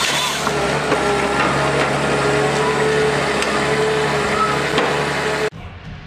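Timber harvester processing a felled conifer stem: the machine's engine and hydraulics running steadily with a whine, over scattered knocks and cracks of wood from the head. It cuts off suddenly near the end.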